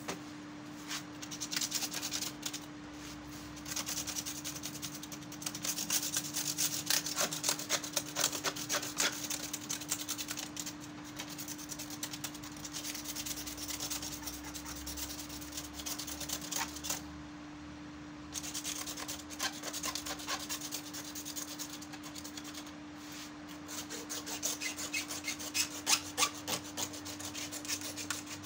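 Scrubbing and scraping strokes on the slatted plastic grille of a room air cooler, in quick runs broken by short pauses, while the grille is cleaned of dirt. A faint steady hum lies underneath.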